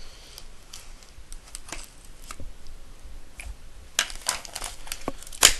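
Small cardboard shipping box being handled and opened: scattered light clicks and rustles, busier about four seconds in, with a sharp snap near the end.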